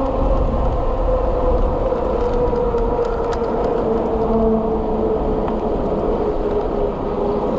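Kepler e-bike at speed: wind and road rumble with a steady whine that slides slowly down in pitch as the bike slows from about 31 to 23 mph.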